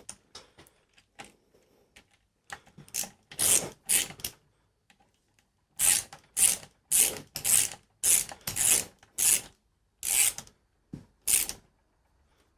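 Hand socket ratchet clicking through repeated back-and-forth strokes while driving in a motorcycle crankcase bolt: a few strokes about three seconds in, then a steady run of about ten strokes, roughly two a second.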